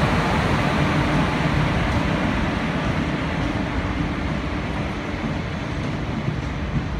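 Passenger coaches of an express train rolling past on the track in a steady rumble that slowly gets a little quieter.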